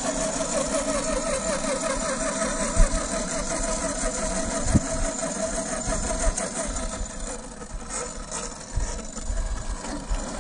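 Brushed 550-size electric motor and gear drivetrain of a 1/10 scale RC rock crawler whining as it crawls along, its pitch wavering with the throttle. A few sharp knocks come about three and five seconds in, and the sound gets quieter near the end.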